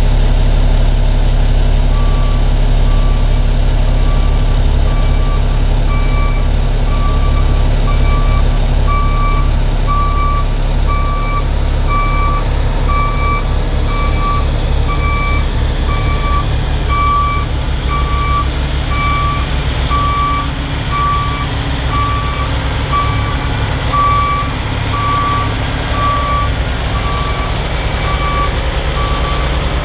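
Truck reversing alarm beeping about once a second, starting a couple of seconds in, over the steady rumble of a semi truck's diesel engine running.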